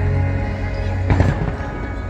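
Music playing over a fireworks display, with a single firework bang about a second in.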